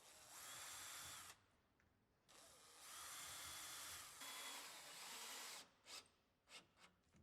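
A power drill runs in three short bursts, its motor whining and winding down at the end of each, while boring fixing holes for a door's striking plate. A few light clicks follow near the end.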